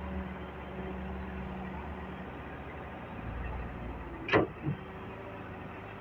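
Heavy diesel engine running steadily at a low hum. About four seconds in, a short sharp sound falls quickly from high to low pitch, followed by a smaller one.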